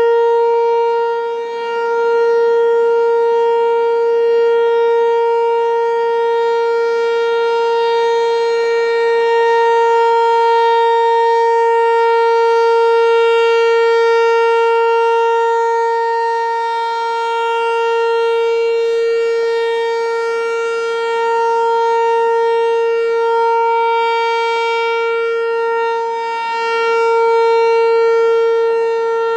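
American Signal T-128 rotating tornado siren sounding a steady single-tone alert signal, its pitch held constant. The level swells and fades as the rotating horn sweeps past, dipping about a second and a half in and again near the end.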